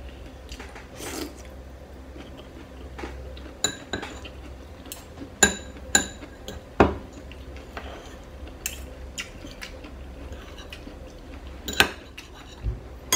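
Metal fork and spoon clinking and scraping against a plate while eating, in irregular sharp clinks, several of them ringing briefly.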